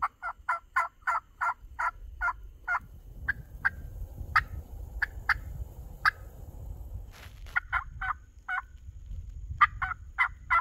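Turkey calling in runs of short, evenly spaced notes, about four a second, with single sharper notes spaced out in the middle. A low rumble sits underneath from about three seconds in.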